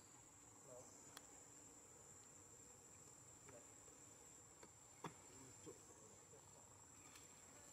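Faint, steady high-pitched insect drone, like crickets or cicadas, with a few soft clicks over it, the clearest about five seconds in.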